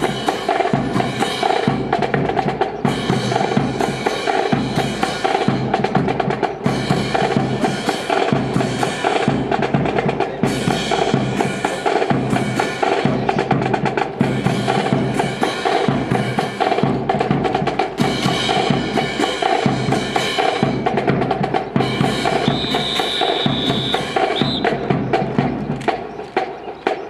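Music with drums: a steady beat of bass drum and snare with drum rolls, over sustained pitched tones. A high, held tone sounds for about two seconds near the end.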